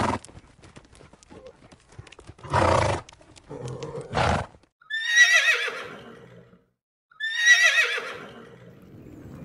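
Horses: two whinnies, each about a second long with a quavering pitch that falls away, about two seconds apart in the second half. Before them come three short noisy bursts.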